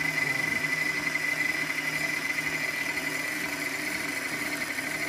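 KitchenAid stand mixer motor running steadily, driving a meat grinder attachment as it grinds turkey: an even motor whine over a lower hum.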